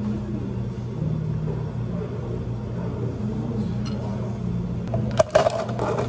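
Ice cubes clinking against a cup in a quick cluster of sharp clicks about five seconds in, over a steady low hum of café equipment.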